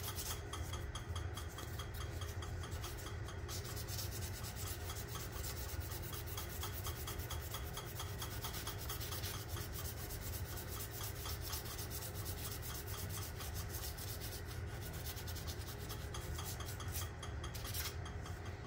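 Hand-sanding a wooden pen blank spinning on a wood lathe: a continuous abrasive rubbing hiss with a fast, even pulsing, over the lathe's steady low motor hum.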